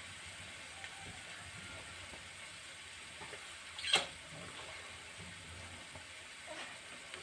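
Faint steady background noise with a few light ticks and one sharp click or tap about four seconds in.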